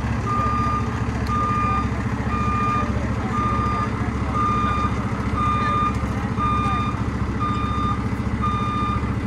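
Reverse alarm on an aerial tower fire truck beeping steadily, about one beep a second, over a low rumble: the truck is in reverse, being backed into the station bay.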